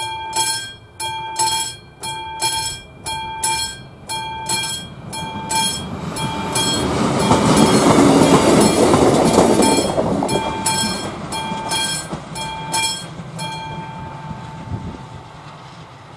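Classic level-crossing warning bell ringing at about two strokes a second, while a ČD Class 814 diesel railcar passes over the crossing, its rumble rising to a peak about eight seconds in and then fading. The bell stops about thirteen seconds in as the crossing clears.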